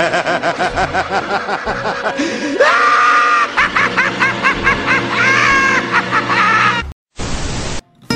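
Men laughing hard in quick rhythmic bursts that rise about two and a half seconds in into high-pitched, shrieking laughter, over background music. The laughter cuts off suddenly about seven seconds in, followed by a short burst of hiss.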